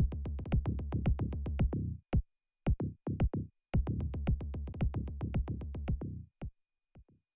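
Electronic music with a regular percussive beat over deep bass, breaking off briefly twice and stopping about six and a half seconds in.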